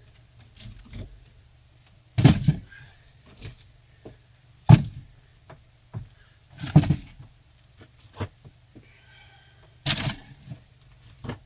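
Compressed wood bricks being set down and stacked, a string of irregular knocks and thuds, the loudest about 2, 5, 7 and 10 seconds in.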